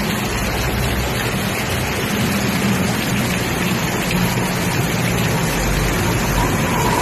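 Heavy rain pouring down in a steady, loud hiss, with a low steady hum underneath.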